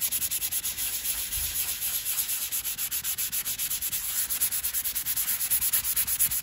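Hand sanding of filler on a vinyl car seat with a sanding pad: rapid, even back-and-forth strokes making a steady scratchy hiss. The filler has been softened with solvent so it can be sanded smooth.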